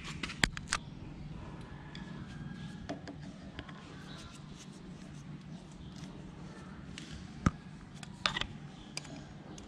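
Hands fitting a sensor and small parts on a motorcycle carburetor: scattered sharp clicks and taps, a couple just after the start and a cluster near the end, over a steady low hum.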